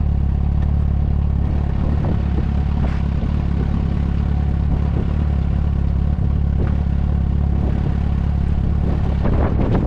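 Yamaha Fazer 6 (FZ6) motorcycle's 600 cc inline-four engine running through its stock exhaust, holding a steady, unchanging pitch with no revving.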